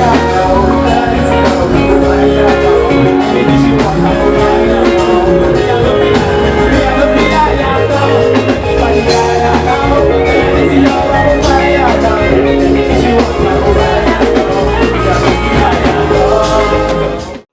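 Loud music with a steady beat, breaking off abruptly at the very end.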